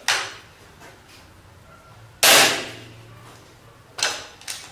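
Rossi Dione break-barrel air rifle being shot and reloaded. The barrel snaps shut at the start, the rifle fires once about two seconds in (the loudest sound), and near the end two clicks come as the barrel is broken open again to cock it.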